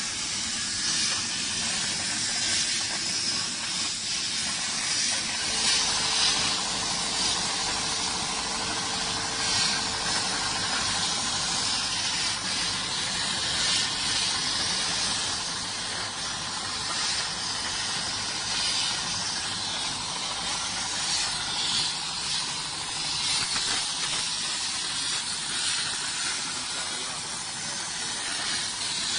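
CNC plasma cutting torch hissing steadily as its arc cuts through metal, with small swells in level. A faint steady hum joins in about five seconds in and fades out a few seconds later.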